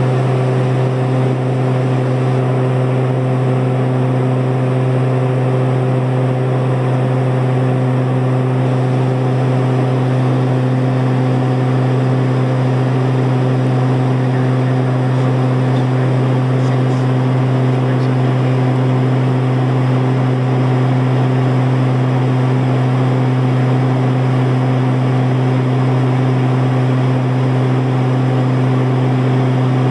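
Steady cruise drone of a Cessna Conquest twin turboprop heard inside the cabin: a strong low propeller hum with a few steady higher tones over engine and air noise.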